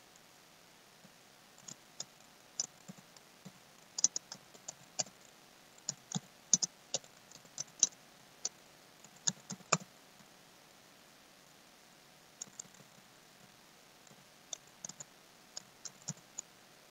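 Computer keyboard being typed on in quick, irregular runs of key clicks, pausing for about two seconds partway through before a shorter run.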